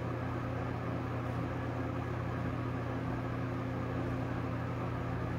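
Steady low electric hum with a faint even hiss: background noise of a running appliance or fan in the room.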